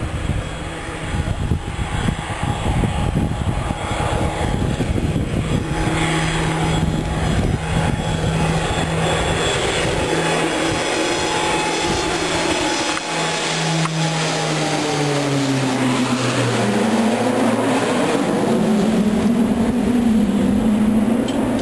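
Two single-engine propeller planes flying over in formation, their engines droning steadily. The engine pitch drops in a long glide about two-thirds of the way in as they pass, then holds lower.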